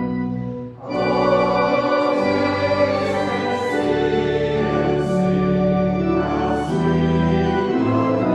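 Organ playing a hymn in sustained chords that change every second or two, with a short break about a second in before a new phrase starts. Voices sing along.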